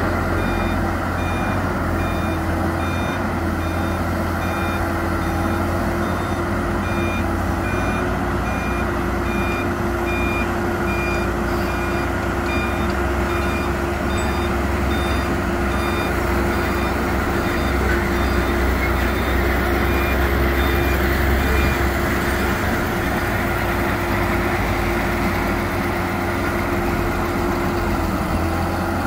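A dump truck's reversing alarm beeping over and over as it backs up, over the steady low diesel rumble of a Volvo EC290BLC excavator and the truck. The beeping stops about three quarters of the way through while the engines keep running.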